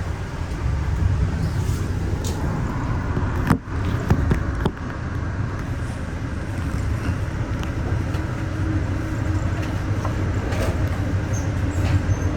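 Steady low rumble of a passenger train car rolling along the track, heard from inside the car, with a few sharp knocks about three and a half to five seconds in.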